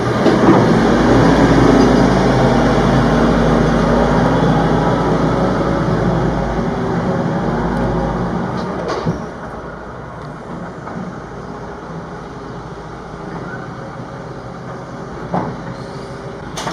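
A loud, steady engine-like rumble that dies down about nine seconds in, leaving a quieter background hum, with a couple of brief knocks near the end.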